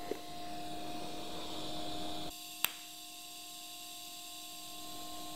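Steady electrical hum with a light hiss from a Miller Dynasty 210 TIG welder's arc on thin stainless tubing. The hiss drops off abruptly a little over two seconds in, followed by a single sharp click.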